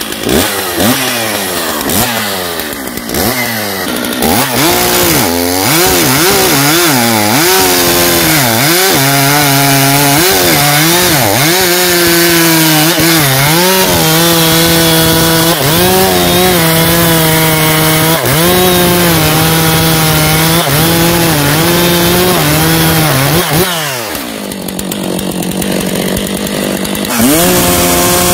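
STIHL MS 660 two-stroke chainsaw with a 90 cm bar: revved in a few quick blips, then held at full throttle cutting through a log, its pitch dipping as the chain bites into the wood. About 24 seconds in the engine drops back to low revs, then revs up again near the end.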